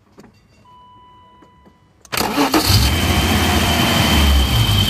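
BMW M30B35 3.5-litre straight-six starting about two seconds in and settling into a steady idle with a high steady whine over it. It is running with a vacuum leak present. Before it catches there is a click and a steady beep of about a second.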